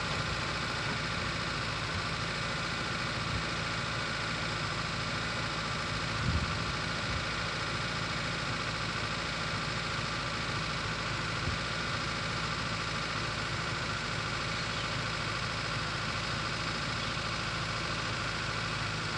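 A vehicle engine idling steadily, with a brief low thump about six seconds in.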